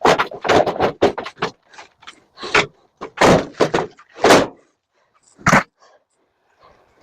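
Clunks, knocks and rattles of a scrap microwave oven's metal casing and parts being handled and pried apart, in a quick irregular series with a pause near the end.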